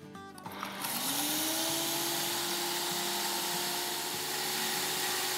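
Electric spice grinder jar on a blender motor base grinding whole spices (cloves, black cumin, nutmeg, mace, cinnamon and green cardamom) to powder. The motor spins up about a second in, its pitch rising, then runs steadily.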